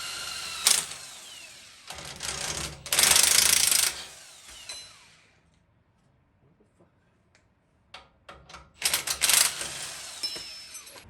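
Cordless power tool run in short bursts on the rear strut top-mount nuts, each burst ending in a whine that falls as the motor spins down, with a few sharp clicks. There is a quiet gap of about three seconds in the middle.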